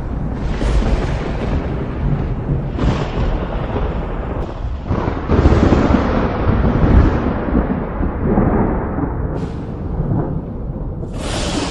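Thunderstorm: thunder rolling continuously, broken by several sharp cracks, the loudest peal about five to seven seconds in, over steady rain.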